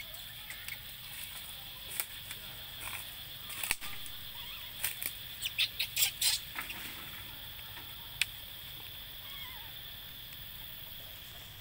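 Dry leaf litter crackling and rustling in short bursts as a macaque mother shifts and handles her newborn on the forest floor, with a quick run of crackles about halfway through. A steady high hum runs underneath.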